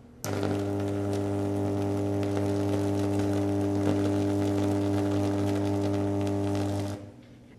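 Antique spark induction coil running, with a steady electrical buzz and the crackle of a 50,000–60,000-volt spark arcing between its electrodes. It starts just after the opening and cuts off abruptly about half a second before the end.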